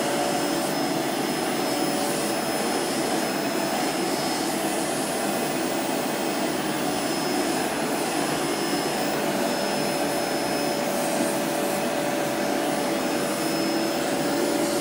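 Canister vacuum cleaner running steadily: an even hiss with a constant whine from its motor.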